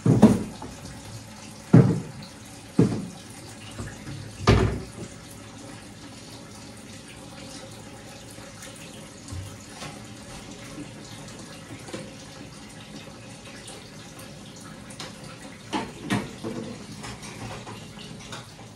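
Kitchen tap running steadily into a sink as something is washed clean, with several sharp knocks in the first five seconds and two more about sixteen seconds in. The water stops right at the end.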